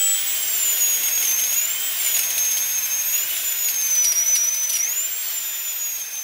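High-pitched drill whining over a hiss, its pitch wavering up and down, dipping and recovering about five seconds in.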